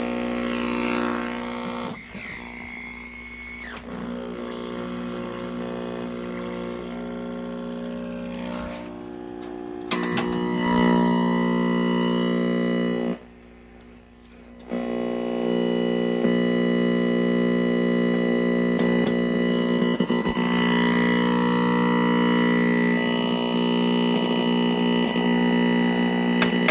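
Music playing with a heavy, distorted buzz, plausibly from the repaired 1969 Zenith tube television's speaker. The sound drops away for about a second and a half just past the middle, then returns.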